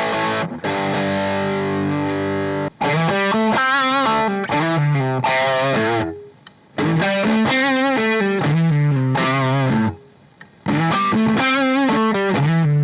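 PRS S2 Custom 24 electric guitar played through distortion: a held chord rings for about three seconds, then a riff of quick single notes is played three times, each phrase stopping sharply with a short pause before the next.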